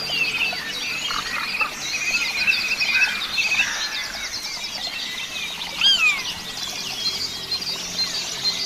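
Several birds chirping and singing at once, a dense tangle of quick overlapping chirps and trills, with one louder slurred whistle about six seconds in.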